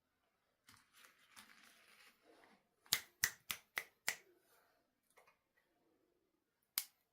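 Objects being handled: a rustle, then five sharp clicks in quick succession, and one more sharp click near the end.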